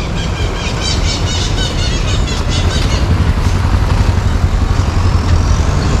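A motor vehicle engine running steadily in the street. A quick run of short, high chirps sounds from about half a second to three seconds in.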